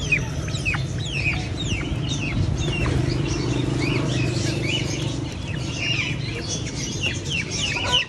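A chorus of caged poultry and other birds calling at once: many short, high chirps sliding downward, one after another, with clucking, over a steady low hum.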